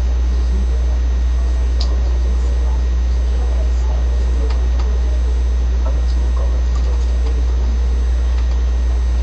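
A loud, steady low hum, with two women's conversation faint beneath it.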